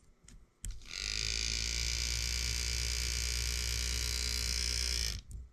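A working miniature scale-model air compressor switched on with a click and running steadily for about four seconds, a hum with a hiss over it, then switched off.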